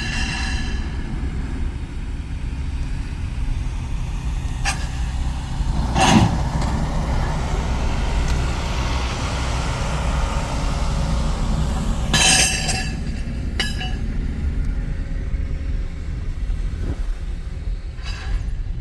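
Steady low engine rumble, with a few sharp clanks scattered through it and a short hissing burst about twelve seconds in.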